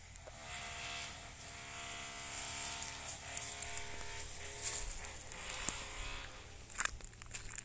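A steady buzzing hum of a small motor, swelling and then fading over a few seconds, with a few sharp clicks near the end.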